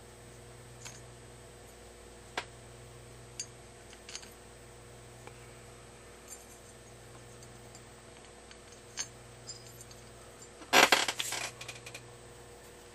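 Light metal clicks as a Honda CT90 cylinder head and its rocker-shaft cover plate are handled and fitted together by hand, a few scattered ticks, then a louder short metallic clatter near the end.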